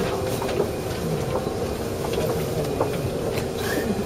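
Interior of an Osaka Municipal Subway 21 series car standing at a station with its doors open: a steady hum from the car's equipment over the platform bustle, with faint voices of people.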